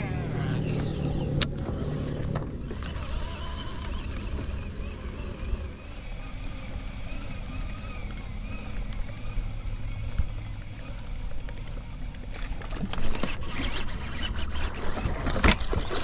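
Boat motor running low and steady, with loud knocks and rustling near the end.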